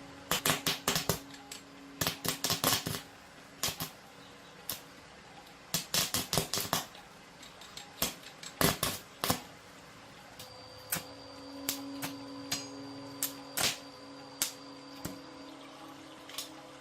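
Quick clusters of sharp taps and clicks from hand work on the parts of a scale being repaired, growing sparser in the second half, over a faint steady hum.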